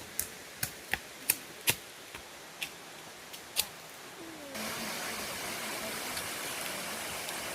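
A string of about eight sharp clicks, irregularly spaced, over a faint hiss; a little past halfway this cuts to the steady rush of falling water.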